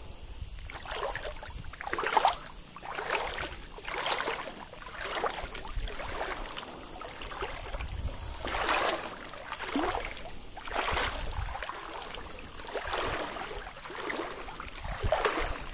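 Someone wading through a flowing river: the water swishes and splashes with each stride, roughly once a second, over the rush of the stream. A thin steady high tone sits above it.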